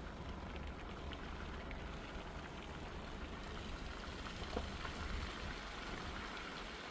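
Light rain with scattered ticks of drops over a steady low rumble, which eases off near the end.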